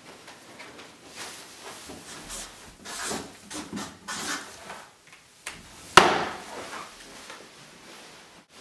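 Felt-tip marker scratching across paper in several short strokes as a word is written. About six seconds in, a single sharp knock on the wooden desk, the loudest sound.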